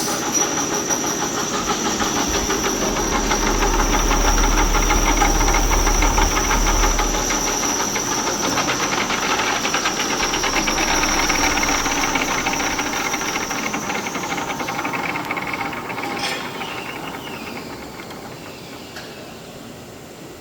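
Metalworking machine running with a steady high whine over hiss and fine rapid ticking. The whine stops about fifteen seconds in, a sharp click follows, and the noise then dies away.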